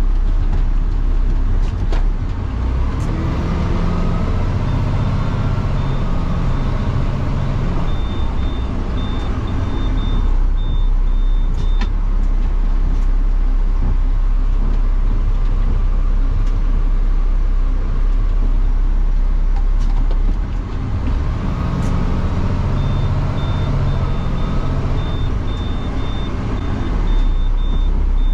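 Automated side-loader garbage truck working its hydraulic arm twice: the diesel revs up each time to drive the hydraulics, with a rising hydraulic whine and a quick electronic beeping while the arm lifts and dumps a cart. A few clunks as the cart is grabbed and set down, and the engine running steadily between the cycles.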